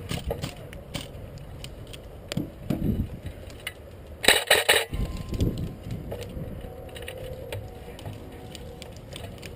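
Scattered clicks, knocks and light clinks of handled or carried gear, with a brief loud hissing burst about four seconds in.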